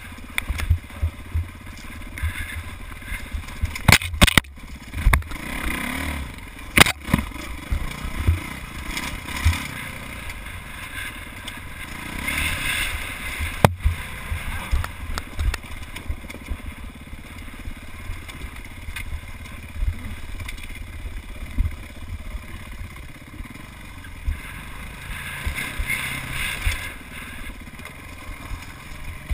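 Dirt bike engine running and revving up and down as the bike picks its way over rocky singletrack, with low buffeting thumps throughout. Several sharp knocks stand out, the loudest about four to five seconds in, again near seven seconds, and once near fourteen seconds.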